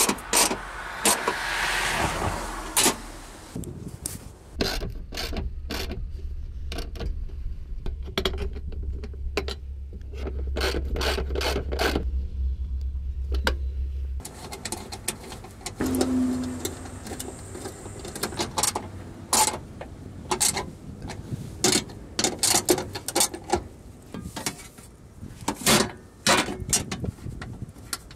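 Clicks, knocks and metal-on-metal clatter of hand tools and parts: a socket wrench turning bolts on the Prius hybrid battery case and brackets, and metal panels being fitted back. A low steady hum runs underneath for about ten seconds in the first half and stops suddenly.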